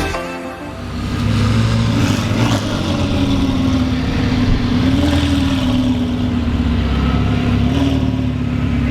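Ferrari 488 Pista's twin-turbo V8 running through an aftermarket Capristo exhaust, mostly idling steadily with two slight rises in pitch, about five seconds in and near the end.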